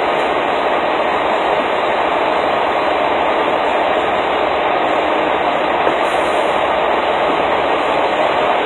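Loud, steady rushing noise from a semi truck at a diesel pump while it is being fuelled, even throughout with no beat.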